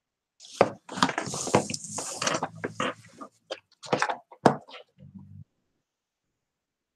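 A quick run of wooden knocks and scraping as a heavy, bark-edged wood round is shifted and turned on the work surface, stopping after about four and a half seconds.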